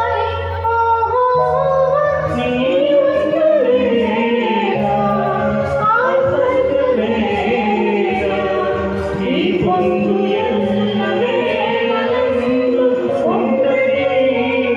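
A Telugu film song sung live into microphones over an instrumental backing track, through the hall's PA.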